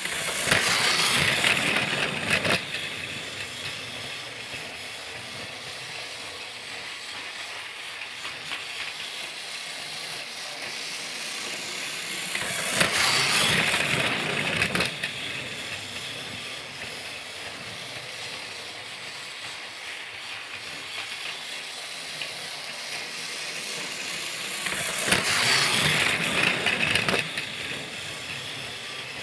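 Thomas the Tank Engine train sound effect: a steady steam-like hiss that swells three times into a louder hissing rush lasting a couple of seconds each, at the start, about 13 seconds in and about 25 seconds in.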